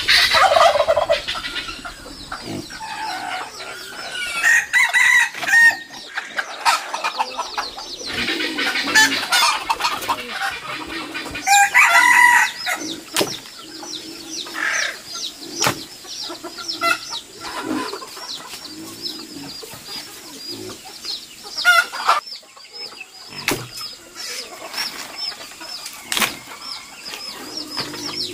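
Chickens clucking and a rooster crowing, mostly in the first half. Later come a few sharp knocks and a fast, high repeated chirping.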